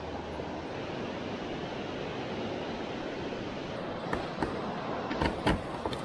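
Steady rushing noise, with several sharp knocks and clatters from about four seconds in.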